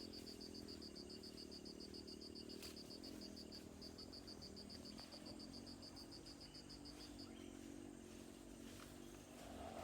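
Near silence with a faint high insect chirping, about eight pulses a second, that stops about seven seconds in, over a low steady hum.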